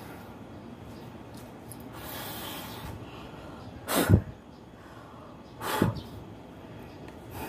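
A woman's two sharp breaths out close to the microphone, about a second and a half apart, from the effort of incline push-ups against a ledge.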